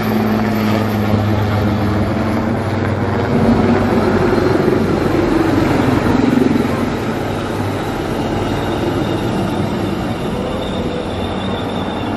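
Display helicopters flying over in formation: a steady drone of rotors and turbine engines with a low hum, swelling a little in the middle.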